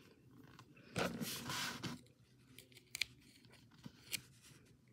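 Faint handling sounds of a small fingerboard deck being poked with a push pin through its grip tape: a short rustling scrape about a second in, then a few small sharp clicks.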